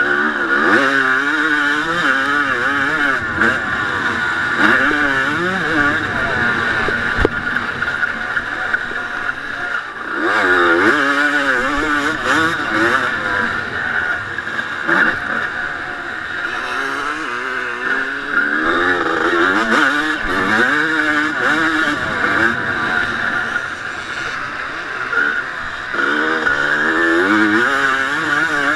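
1989 Honda CR250's single-cylinder two-stroke engine being ridden hard on a motocross track. Its pitch rises and falls over and over as the rider accelerates, shifts and backs off.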